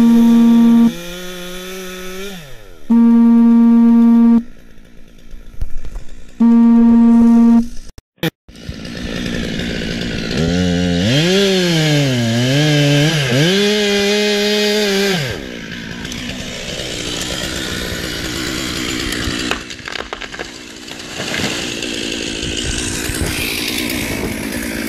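Gas chainsaw making the felling cut in a notched tree, run at full throttle in three short bursts with drops in between, the revs falling off after the first. After a brief break the saw runs again with its pitch rising and falling under load, followed by a long stretch of steady rushing noise.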